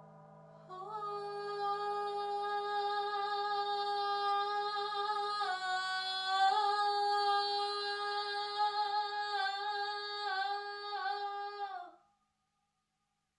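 A woman's voice singing one long wordless held note for about eleven seconds, with a brief dip in pitch midway, over the last ringing of a singing bowl fading out. The note stops abruptly near the end.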